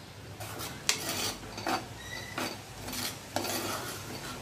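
A metal spoon stirring thick green masala paste in an earthenware pot, scraping against the clay about once a second. The paste is being sautéed in oil until the oil separates.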